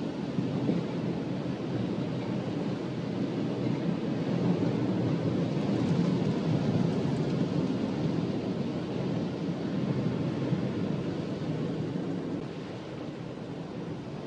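Rainstorm noise: a steady, low rumbling rush of wind and rain, with wind on the microphone, dropping somewhat about twelve seconds in.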